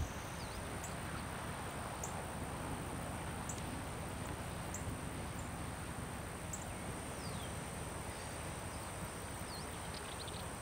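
Open-meadow ambience: a steady high-pitched insect drone, short high bird chirps every second or so with a few sliding bird calls, and a soft low rumble of wind.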